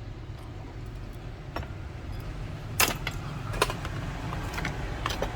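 A few sharp clicks and light taps of small metal repair tools and parts, the loudest about three seconds in, over a steady low rumble.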